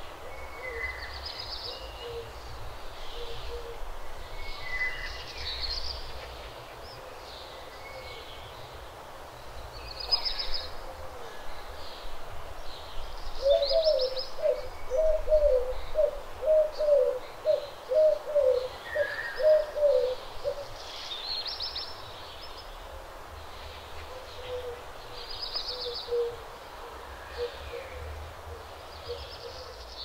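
Birds calling in a wetland: scattered high chirps and whistles from several birds, and in the middle a loud series of about a dozen low hooting notes at roughly two a second, with fainter low notes before and after. A low rumble runs underneath.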